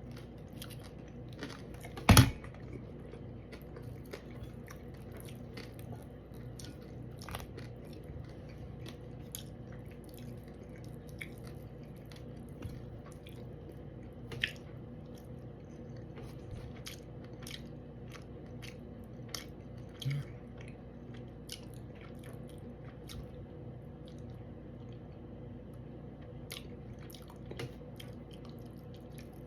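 Close-up chewing and biting of fish, with scattered small clicks and smacks of the mouth over a faint steady hum. A single loud knock comes about two seconds in.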